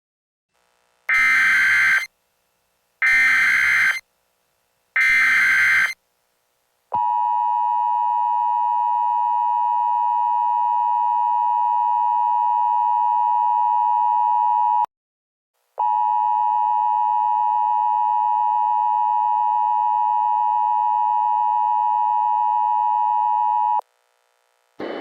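Simulated Emergency Alert System tones for a Required Monthly Test. First come three one-second bursts of warbling SAME header data, about a second apart. Then the steady two-tone attention signal plays for about eight seconds, breaks off for under a second, and plays for about eight seconds more.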